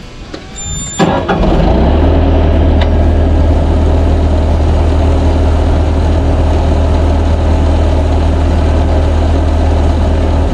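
Bobcat 873 skid steer's diesel engine starting with a short crank about a second in, then running steadily at idle. It is restarted because a hydraulic coupler on the auxiliary lines would not connect.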